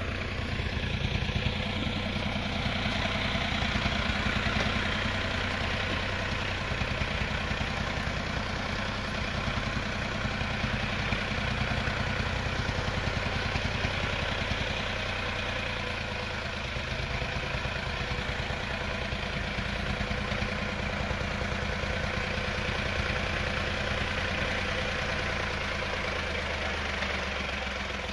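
Diesel engine of a homemade xe cày farm tractor-truck running steadily with a fast, even chugging while it carries a load of cassava down a steep slope.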